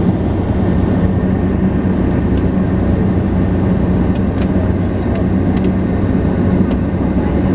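Cessna Caravan C-208's single Pratt & Whitney PT6A turboprop engine and propeller droning steadily, heard from inside the cabin on the landing approach: a steady low hum with a thin high whine above it.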